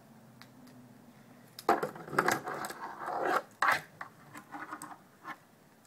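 Plastic Bumblebee Transformers toy being folded by hand: its parts scrape and rub against each other, with several sharp clicks as pieces are moved into place, for a few seconds after a quiet start.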